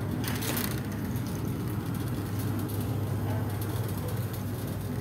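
Shopping cart rolling across a hard store floor: a steady low rumble from its wheels and wire basket, with a brief hiss about half a second in.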